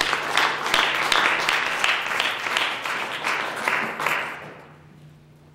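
Audience applauding, dying away about four and a half seconds in.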